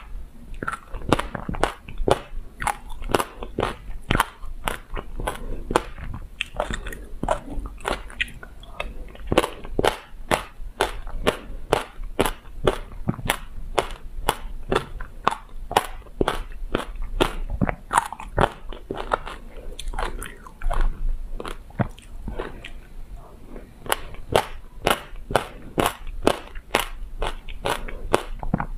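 Close-miked chewing of passion fruit pulp with black sesame seeds: crisp seed crunches, two or three a second.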